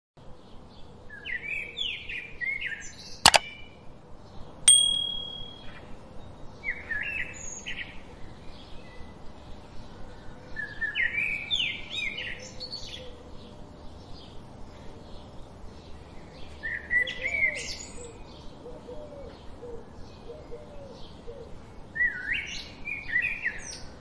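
A songbird sings a short warbled phrase about every five seconds over a faint, fast, regular ticking. A sharp click comes about three seconds in, with a bright ding just after.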